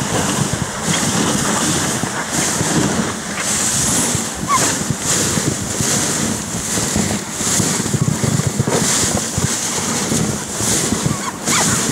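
Wind buffeting the microphone on a moving dog sled, a steady rushing hiss with a fluttering low rumble.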